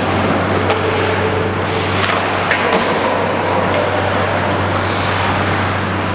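Ice hockey rink sound: a steady hiss of skates on the ice and hall noise over a constant low hum, with scattered sharp clicks of sticks and puck.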